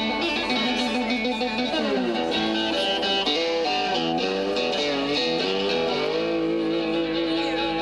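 Live blues band music: amplified cigar box guitars and harmonica playing long held notes that bend and slide in pitch, with a downward slide about two seconds in.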